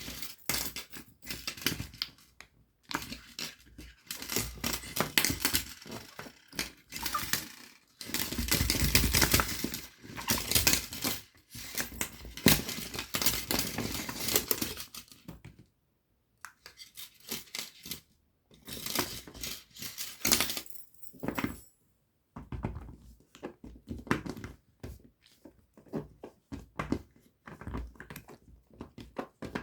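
Mini pop-it fidget keychain being pressed: rapid runs of small silicone pops and clicks, with its metal keychain ring clinking, in bursts separated by short pauses.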